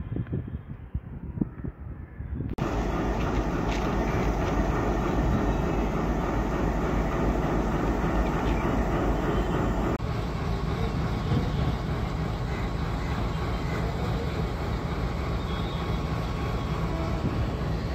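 Indian Railways WDM-3A ALCO diesel locomotive passing with its train: the diesel engine running under load together with the clatter of wheels on the rails. The first couple of seconds carry sharp wheel knocks, then the sound jumps to a louder, steady engine-and-rail noise for the rest.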